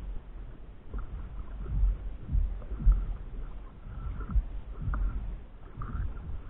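Water sloshing and slapping against a stand-up paddleboard as it is paddled, heard as a low rumble with irregular thumps.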